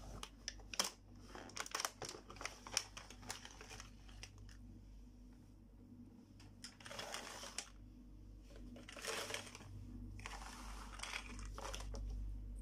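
Clear plastic packaging crinkling as it is handled, a dense run of crackles for the first few seconds, then three or four separate short rustles.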